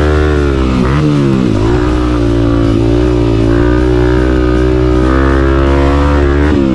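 Background music with guitar, over the single-cylinder four-stroke engine of a Honda CRF 250F dirt bike running at speed; the engine eases off and picks up again about a second in.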